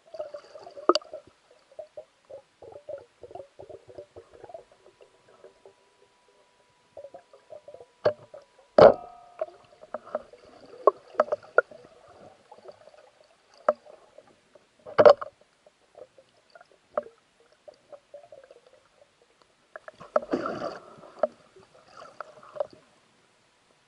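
Underwater sound picked up by a camera mounted on a speargun: scattered small clicks and crackles, with two sharp knocks, about nine seconds in and again at fifteen seconds, and a thick patch of crackling near the end.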